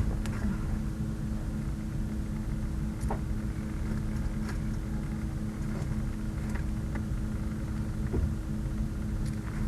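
Steady low mechanical hum with two steady tones, broken by a few faint, scattered clicks and rustles.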